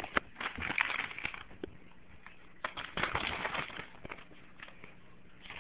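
Pug puppy chewing and tugging at paper: crinkling rustles and small clicks in two spells, about half a second in and again near three seconds in.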